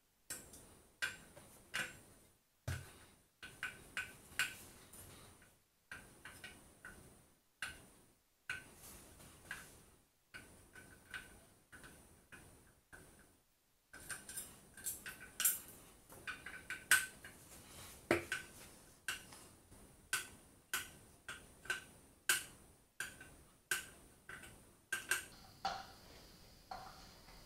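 Steel T-handle hex key clicking and clinking in the brake disc's bolt heads as the bolts are spun out, a light metallic tick about once or twice a second with a faint ring from the disc.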